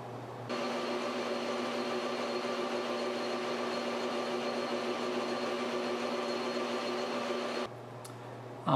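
Metal lathe running under power with a steady whine, taking a 0.015-inch pass on a copper rod to point its tip. The sound starts abruptly about half a second in and stops abruptly near the end.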